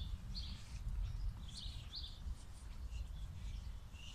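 Small birds chirping, short high chirps repeating every half second or so, over a steady low rumble.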